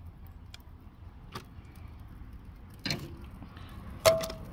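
Metal tongs clinking against a stainless steel sauce pot as chicken pieces are dipped in barbecue sauce: a few scattered clinks, the loudest near the end with a brief metallic ring, over a steady low background rumble.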